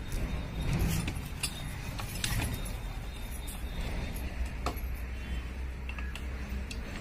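Metal clinks and clanks of a hand-crank handle on a small diesel water-pump engine as it is cranked by hand to start it, over a steady low rumble.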